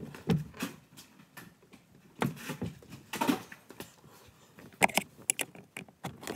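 Irregular clicks, scrapes and knocks of a screwdriver prying at the blower-motor cover, with a cluster of sharp clicks about five seconds in.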